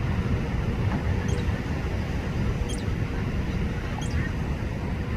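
A small songbird repeating a thin, high call that falls in pitch, three times about a second and a half apart, over a steady low rumble.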